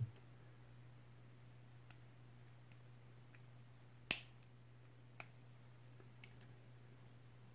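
Small hard-plastic Playmobil figure parts clicking as they are pressed and snapped into place by hand: a few sharp, separate clicks, the loudest about four seconds in.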